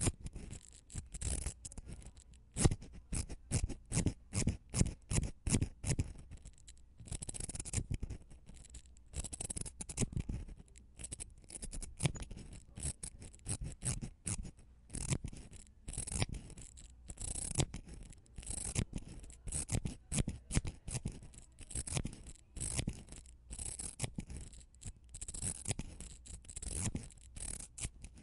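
Mascara wand brushing, quick repeated short scratchy strokes in bursts with brief pauses between them.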